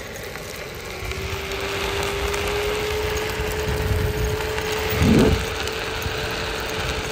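Onewheel electric board's hub motor whining steadily, its pitch rising slightly as the board picks up speed, with wind buffeting the microphone and a louder gust about five seconds in.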